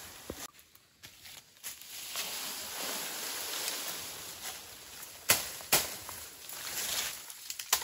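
Dry bamboo leaves rustling and crackling under bare feet and as a long bamboo pole is pulled through the leaf litter, with two sharp cracks about five seconds in and another near the end.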